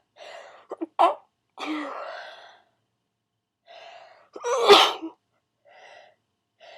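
A person sneezing twice during a sneezing fit, each sneeze set up by quick catching in-breaths. The first sneeze, about a second in, is short and sharp. The second, about four and a half seconds in, is louder and longer. More in-breaths build up near the end.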